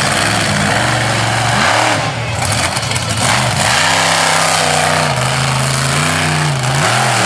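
Mountaineer monster truck's V8 engine revving hard, its pitch swinging up and down several times as the throttle is worked.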